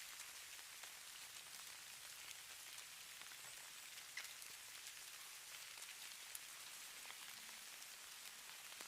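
Falling snow: a faint, steady hiss with scattered tiny ticks of flakes or ice grains landing, a slightly sharper tick about four seconds in.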